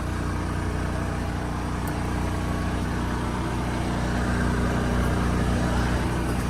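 Steady idling hum of a running motorhome: the Mercedes Sprinter chassis's 3.0 litre turbo diesel and the Onan 3,600-watt propane generator, both left running.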